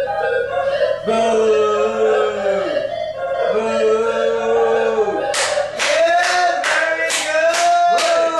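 Music of long held notes, each sliding down in pitch as it ends; about five seconds in, steady rhythmic clapping, about two claps a second, joins in over the notes.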